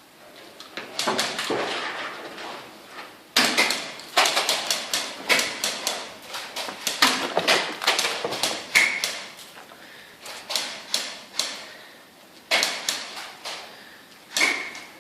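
Airsoft guns firing, sharp pops in rapid bursts and single shots, with several shooters at once for much of the time and a short lull around the middle.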